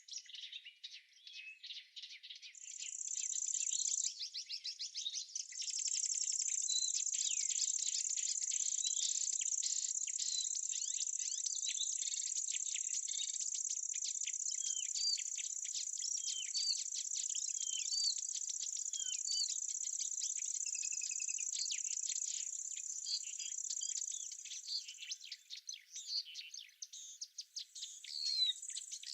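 A high, continuous insect buzz comes in about two and a half seconds in, breaks off briefly and starts again, then fades out near the end. Under it, birds chirp in short, quick notes.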